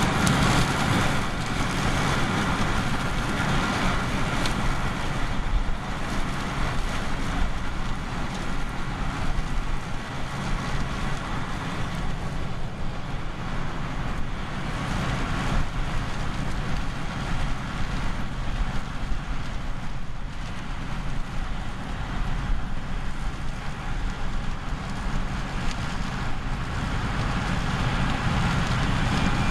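Heavy farm machinery running steadily at harvest: diesel engine and machine noise from the combine and tractors working the sunflower field.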